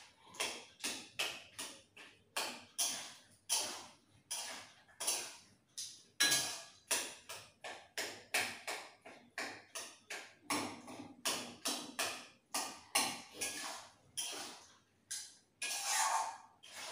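Metal spatula scraping and knocking against a kadai while stirring the curry: a quick, irregular run of strokes, two to three a second.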